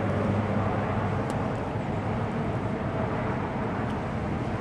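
Steady low rumble and hum of vehicle traffic outdoors.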